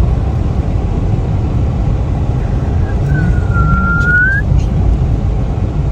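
Steady low rumbling noise, with one short whistling tone about three seconds in that dips slightly and then rises.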